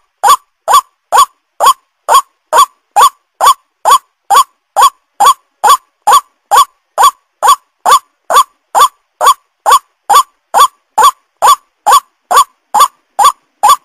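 White-breasted waterhen (ruak-ruak) call: a short upward-sliding note repeated about two and a half times a second at a perfectly even pace, without a break.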